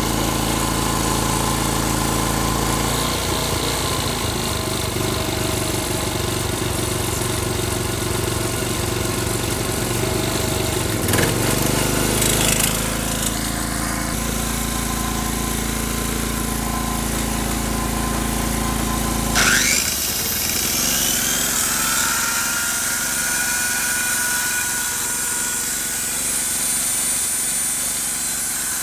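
A 3400-watt portable inverter generator running steadily on its freshly cleaned carburetor. About two-thirds of the way through its sound changes suddenly, and a rising high whine settles into a steady tone.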